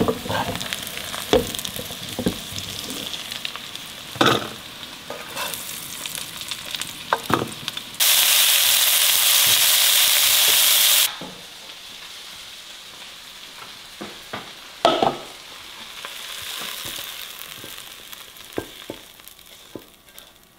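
Sliced jengkol, then chilies and shallots, sizzling as they fry in oil in a nonstick wok, with the spatula knocking and scraping against the pan. About eight seconds in a much louder burst of sizzling starts suddenly, lasts about three seconds and cuts off abruptly.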